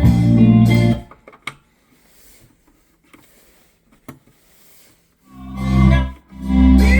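Guitar music with strong bass notes that cuts out about a second in, leaving a few sharp clicks in a quiet gap, and comes back twice near the end.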